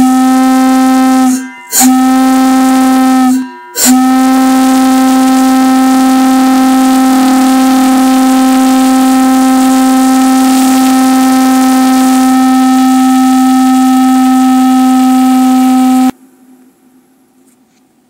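Rare Lunkenheimer 6-inch brass bell whistle blown on compressed air, sounding a single steady chime with a rich ring of overtones. Two short blasts of about a second and a half, then one long blast of about twelve seconds that cuts off sharply.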